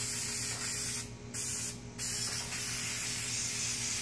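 Aerosol can of spray adhesive hissing as it is sprayed, in three bursts with two short breaks in the first two seconds.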